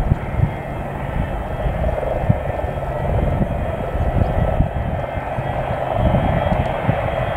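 Boeing 727's three rear-mounted Pratt & Whitney JT8D turbofans running at low power as the jet taxis, a steady jet roar with a thin whine, growing slightly louder. Wind buffets the microphone with low thumps.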